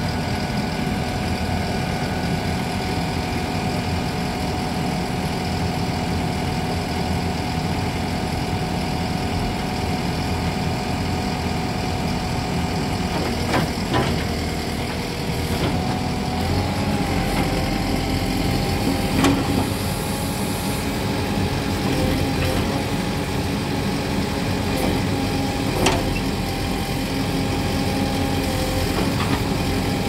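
Tata Hitachi Shinrai backhoe loader running steadily at idle while the backhoe arm is worked. A higher steady tone joins the engine about halfway through, and a few short knocks sound in the second half.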